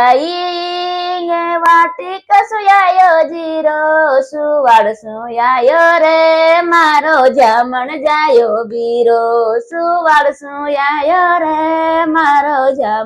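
A woman singing a Marwari (Rajasthani) folk bhajan solo, with no accompaniment. She holds long notes that waver and bend in pitch between short breaks for breath.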